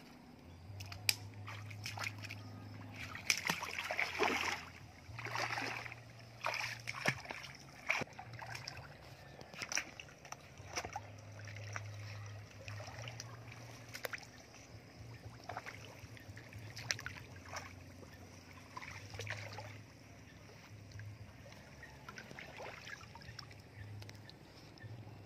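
Water splashing and sloshing as a person wades through a shallow, weedy pond, in irregular splashes that are loudest a few seconds in.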